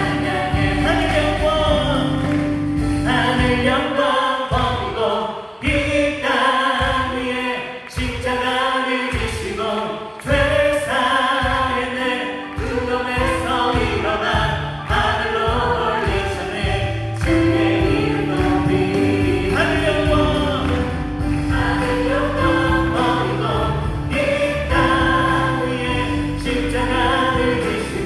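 A praise team of women's voices sings a Korean gospel worship song into microphones, backed by a live keyboard, bass guitar and drums. For a few seconds near the middle the low accompaniment stops and starts.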